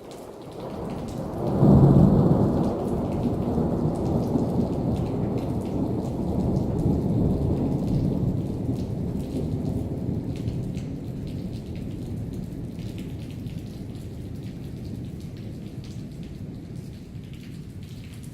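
A thunderclap breaks about a second and a half in and rolls into a long low rumble that slowly fades, over steady rain.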